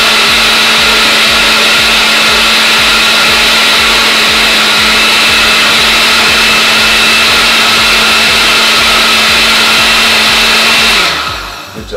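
Countertop blender with a glass jar running steadily, blending sorrel and ginger in water: a loud whir of the blades with a steady motor hum. It is switched off about eleven seconds in and winds down.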